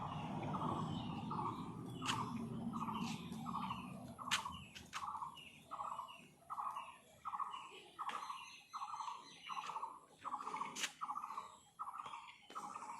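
A bird calling the same short note over and over, evenly, about twice a second, with a few sharp clicks in between. A low rumble underneath fades out about four seconds in.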